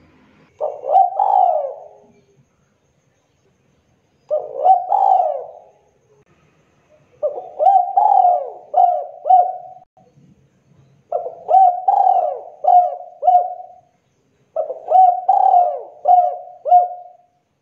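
Spotted dove cooing: five phrases a couple of seconds apart, each a quick run of low, hollow coo notes.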